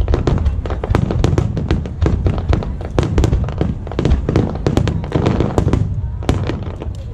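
Fireworks bursting in rapid succession: a dense string of sharp bangs and crackles, several a second, over a low rumbling.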